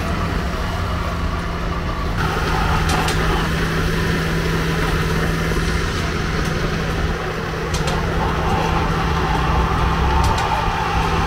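Roadside traffic: vehicle engines running, with a steady low hum and a few sharp clicks.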